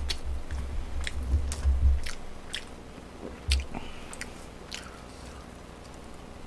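Close-miked eating sounds: chewing with sharp, wet clicks. There are low bumps in the first two seconds and one more about three and a half seconds in, then the sounds thin out.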